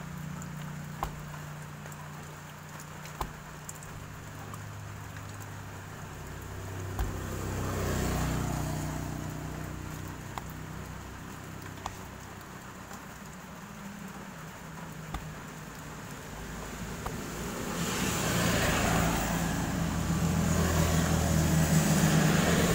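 Motor vehicle engine noise over a steady low hum, swelling about eight seconds in and again, louder, near the end. Small scattered clicks come in between.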